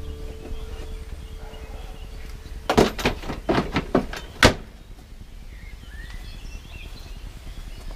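A quick run of knocks and clatters, several sharp strikes within about two seconds, starting about three seconds in and ending with the loudest one.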